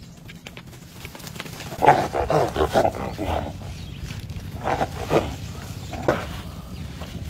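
Wild boar squealing in distress as a Komodo dragon bites it. There is a long run of rough squeals about two seconds in, then three short ones around five and six seconds.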